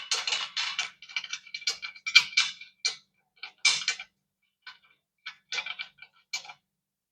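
Irregular metallic clicking and ticking as a screw is threaded by hand into the top of a steel bed frame, with a faint ring from the steel. The clicking stops about six and a half seconds in.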